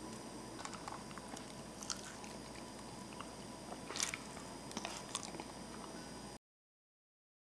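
A person chewing and biting chicken off the bone, with faint wet mouth clicks and smacks, one sharper click about four seconds in. About six and a half seconds in the sound cuts out completely.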